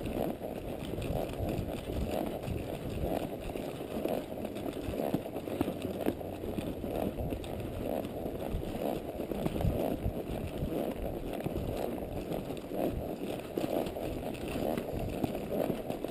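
Low, steady rumbling noise of wind buffeting the microphone.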